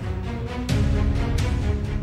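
Background music: sustained chords over a heavy bass, with sharp percussion hits twice.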